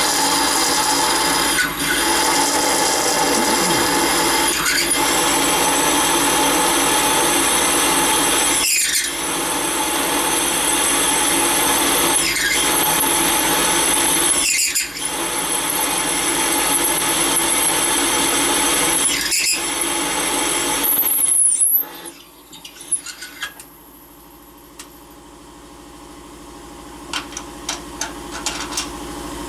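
A Serdi 100 valve-seat-and-guide machine drills out a valve guide in a cast-iron Plymouth 318 poly-dome cylinder head. The spindle gives a steady high-pitched whine that sags in pitch briefly several times as the bit bites, then stops about 21 seconds in. Light metal clicks follow near the end as the tooling is handled.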